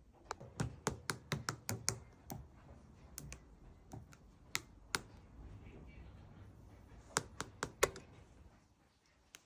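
A series of sharp taps or clicks: a quick run of about eight in the first two seconds, a few scattered ones after, then another quick cluster near the end.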